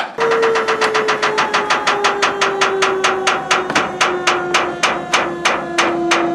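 Powered shed-delivery trailer mechanism running while the trailer is pulled out from under a shed: a motor hum that slowly drops in pitch, with a regular clacking about five times a second that gradually slows.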